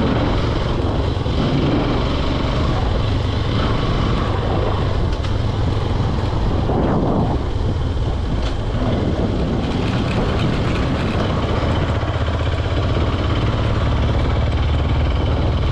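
Motorcycle engine running steadily while riding at road speed, mixed with rushing wind noise on the microphone.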